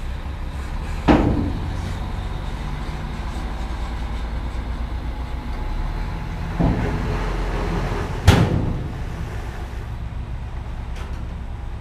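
Dump truck's diesel engine running steadily while its emptied bed is lowered. Two loud metal bangs, one about a second in and one about eight seconds in, with a smaller knock just before the second, as the bed and tailgate come down.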